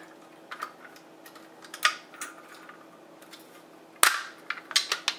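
Key clicking and turning in the sticky lock of a Notifier NBG-12LX fire alarm pull station, then about four seconds in a loud plastic snap as the housing is unlatched and opened, followed by a few lighter clicks.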